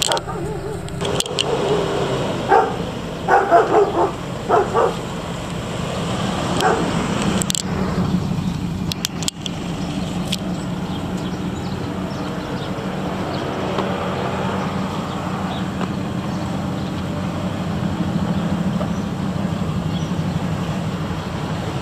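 Ford F250 Super Duty pickup's gasoline V8 running steadily. A few seconds in there is a cluster of short, loud bursts, and there are a few sharp clicks a little later.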